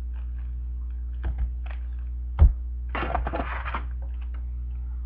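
Sealed trading card box being opened by hand: a few light knocks, a sharp tap about two and a half seconds in, then under a second of crinkling plastic wrap.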